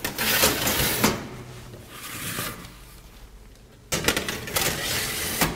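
Two metal baking trays slid one after the other along an oven's shelf runners, scraping and clattering metal on metal. The first goes in during the first second or so, the second from about four seconds in.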